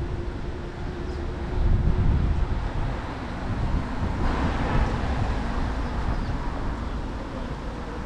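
Outdoor ambience of road traffic and wind on the microphone: a steady low rumble, swelling about two seconds in, with a louder rush about four seconds in.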